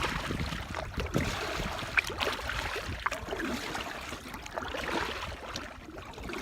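Wind on the microphone with water lapping against a small boat's hull, with a few light knocks.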